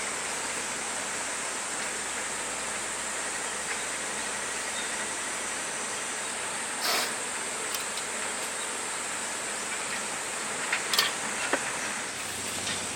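A steady high-pitched insect chorus droning over a constant background hiss, with a few short light clicks about seven seconds in and again near eleven seconds.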